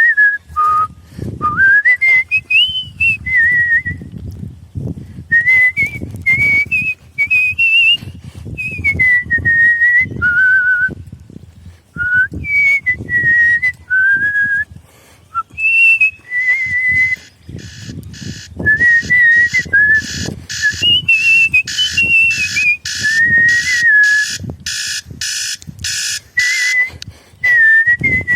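A person whistling a tune by mouth, in the style of artistic whistling: one clear, pure line that slides smoothly between notes and breaks into short phrases. Even, rhythmic hissy stripes join the whistling in the second half.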